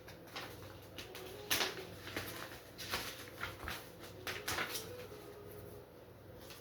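Hands handling parts and packaging: a series of short rustles and light knocks at uneven intervals, the loudest about a second and a half in.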